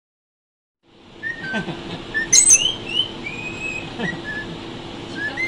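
Green parakeets chirping and whistling, short notes gliding up and down with a few sharp squawks, starting about a second in over a low steady hum.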